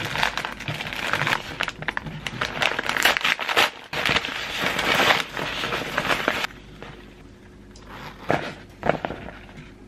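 Plastic mailing bag and kraft-paper wrapping being handled and torn open: dense crinkling and crackling for about six and a half seconds. Then it goes quieter, with two short rustles near the end.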